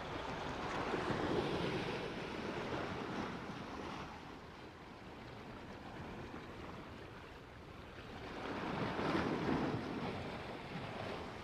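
Sea waves washing against shoreline rocks, swelling twice, about a second in and again near the end, with some wind on the microphone.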